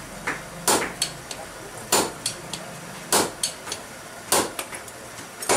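Hammer blows on a hot punch driving into a glowing steel ball peen hammer head on an anvil: five heavy strikes about 1.2 seconds apart, with lighter taps between.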